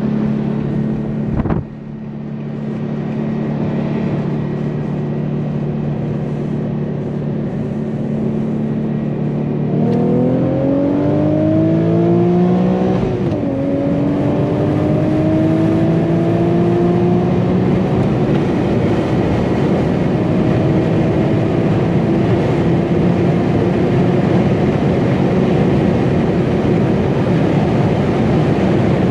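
Manual Infiniti G37 sedan's V6 engine heard from inside the car on a highway pull. It holds a steady cruise at first, then goes to full throttle about ten seconds in and climbs in pitch. An upshift about three seconds later drops the revs, and it keeps pulling, rising more slowly in the higher gear.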